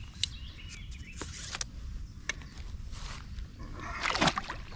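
Light handling clicks and rustles, then, about four seconds in, a short water splash as a large pike is lowered back into the water beside a float tube.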